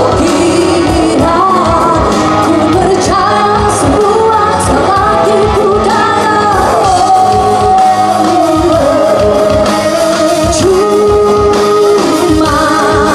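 A woman singing a rock song live into a microphone, holding long notes, over a loud band with electric guitar.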